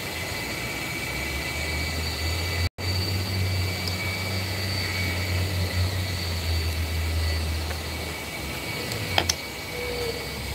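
A low, steady mechanical rumble comes in about a second in and dies away near the end, over a faint constant high whine. The sound cuts out completely for an instant about a quarter of the way through.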